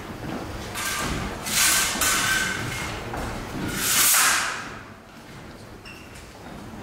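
Fencers' footwork during a sabre bout: shoes scuffing and sliding on a wooden hall floor in two long hissing bursts, with light thuds.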